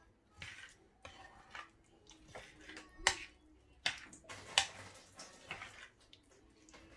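Metal spoon clinking and scraping against a ceramic bowl while stirring sliced onions in a wet spice sauce, with a few sharper clinks a little after the middle.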